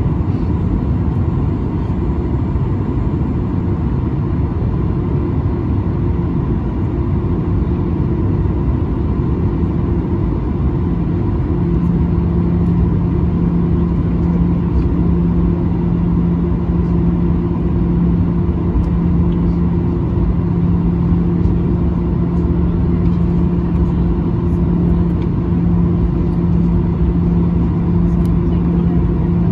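Cabin noise of a Boeing 737-900ER taxiing: its CFM56-7B engines running at taxi power under a steady rumble, with a steady hum that grows stronger about twelve seconds in.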